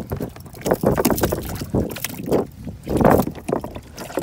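Irregular splashing and knocking on a wet plastic kayak deck, in noisy bursts about a second apart, the loudest about three seconds in.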